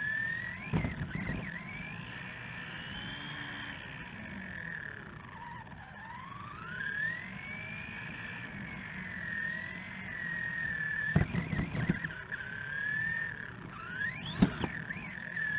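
Electric motor whine of a 1/10 RC short-course truck, rising and falling in pitch as it speeds up and slows down, over a rumble of tyres on pavement. A few sharp knocks, about a second in, around eleven seconds and near the end, mark bumps or jolts.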